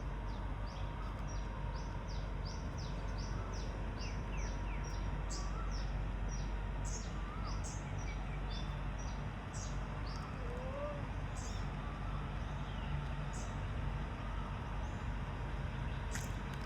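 Small birds chirping over and over, a quick run of short, high, falling chirps with a few lower warbled calls among them, over a steady low outdoor hum.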